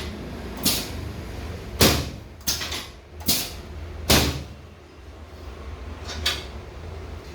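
A string of sharp clunks and clacks, about eight in all, from a chiropractic adjusting table's mechanisms as its parts are worked. A low steady hum runs underneath.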